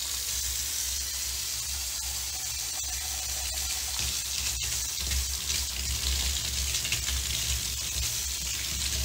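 Water running steadily from a bathroom tap, with a low rumble underneath and a single sharp click about halfway through.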